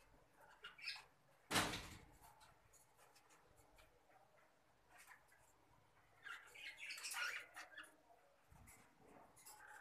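Fischer's lovebirds giving short, high, squeaky chirps, scattered at first and then a quick run of them past the middle. A single brief loud noise comes about a second and a half in.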